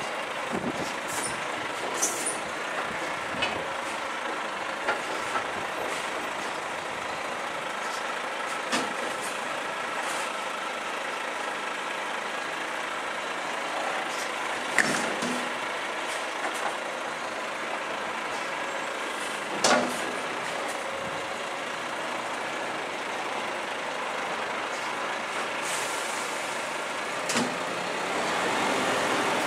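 Front-lift garbage truck's diesel engine running as it manoeuvres. Short sharp hisses and clunks, typical of air brakes, break in a few times.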